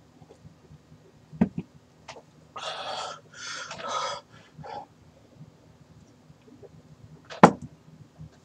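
A man breathing out hard through his mouth, two long huffing breaths followed by a shorter one, panting from the burn of a scorpion pepper he has just eaten. A low knock comes about a second and a half in, and a sharper, louder click near the end.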